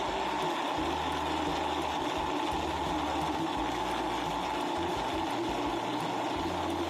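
Electric blender running steadily, blending a drink with added water.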